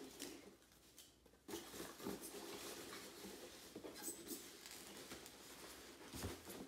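Hands rummaging through packing material inside a cardboard shipping box: irregular soft rustling, scraping and light taps of cardboard. It starts after about a second of near quiet, with a soft low bump near the end.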